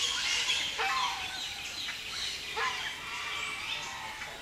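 Many birds calling at once, their calls overlapping in a dense chorus, with a few louder falling calls about a second in and again past two and a half seconds.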